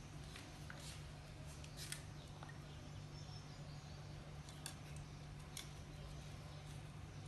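Faint, scattered sharp clicks of an Alexandrine parakeet's beak biting into watermelon, a few clearer ones spaced about a second apart, over a steady low hum.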